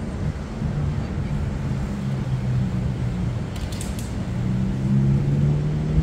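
An engine running with a steady low drone, its pitch wandering slightly and growing louder near the end, over the rushing noise of wind and surf.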